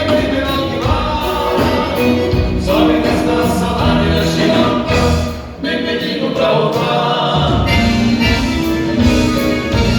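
A band playing with several voices singing together.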